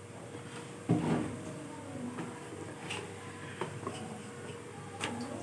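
Metal spoon stirring and scraping yogurt and ground spices in a bowl, with scattered light clicks and a louder knock against the bowl about a second in.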